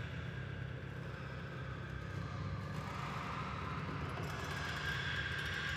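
A steady low rumble under a hiss, like distant engine or traffic noise; a faint high held tone joins about four seconds in.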